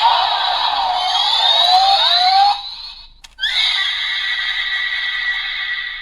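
Electronic sound effects from the speaker of a Kamen Rider Geats Boost Buckle toy, set off by twisting its handle. The first effect has sweeping pitch glides and lasts about two and a half seconds. A second effect starts about three and a half seconds in, holds steady high tones and fades out near the end.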